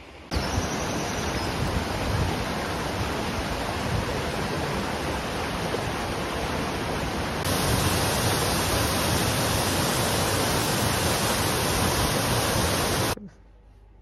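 Loud, steady rush of fast-flowing water. It starts suddenly, turns slightly brighter about halfway through, and cuts off abruptly near the end.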